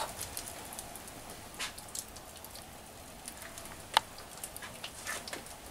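Wood fire in a wood-fired oven crackling faintly: a few scattered pops over a low hiss, the sharpest about four seconds in.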